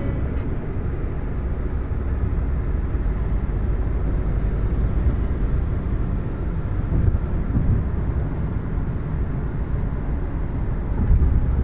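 Steady low rumble of tyres and engine heard from inside a moving car.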